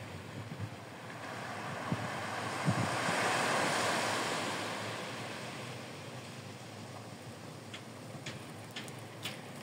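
Small waves breaking and washing up a sandy beach: a steady rush of surf that swells about three seconds in and then eases off, with some wind buffeting the microphone. A few faint, short high ticks come near the end.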